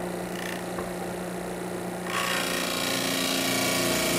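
Delta disc sander's motor running with a steady hum. About two seconds in, the corner of a wooden tabletop slab is pressed against the sanding disc and a loud, rasping grind of the wood being sanded away begins and continues.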